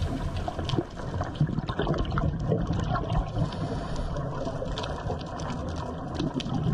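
Underwater sound picked up by the camera: a murky, uneven rushing of water with many small scattered clicks and crackles.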